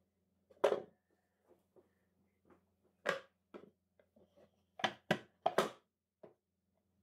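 Irregular wooden knocks and taps as walnut box panels are handled and pressed together to seat glued dovetail joints, with a quick cluster of louder knocks about five seconds in.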